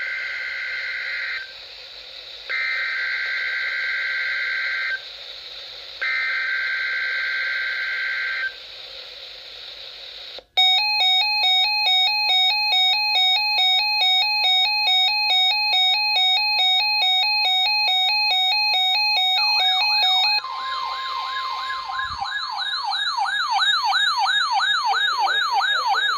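Emergency Alert System test tones over NOAA Weather Radio. First come three bursts of two-tone digital header data with short gaps between them. Then a steady, buzzy alert tone with a slight pulse runs for about ten seconds, and in the last few seconds it gives way to a siren-like rising sweep that repeats about twice a second.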